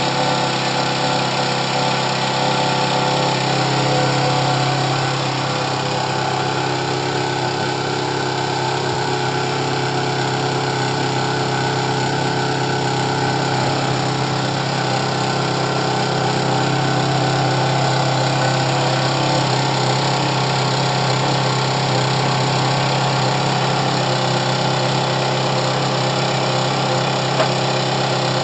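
Ferrari 430 Scuderia's V8 idling steadily at a constant pitch, with no revving.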